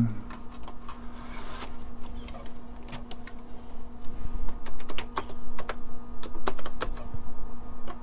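Clicking keystrokes on a computer keyboard, a scattered series of key presses as a DOS command is typed, over a steady low hum.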